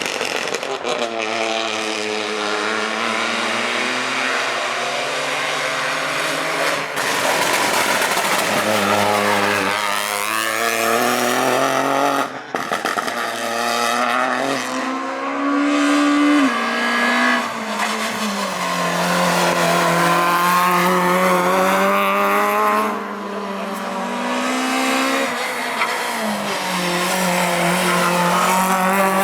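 Rally car engines at full effort, revving up and dropping back over and over through gear changes, with a sharp break about twelve seconds in.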